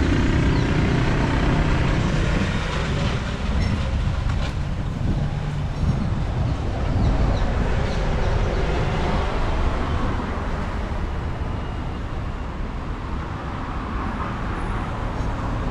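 Steady low rumble of passing traffic, loudest at the start and slowly fading.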